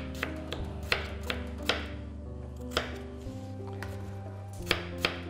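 Kitchen knife slicing raw potatoes on a plastic cutting board: sharp, irregular knocks of the blade through the potato onto the board, sparser in the middle and quicker near the end. Soft background music with held notes underneath.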